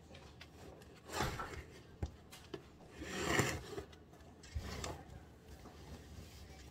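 Food containers and lids handled on a tabletop: a few rubbing and scraping sounds with light clicks and knocks, the loudest a scrape a little after three seconds in.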